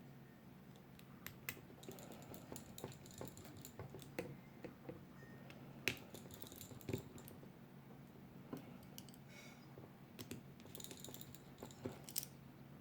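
Faint, irregular small clicks and taps of tools and small metal parts being handled on an iPhone 7 Plus during screen reassembly, a few sharper clicks among them, over a low steady hum.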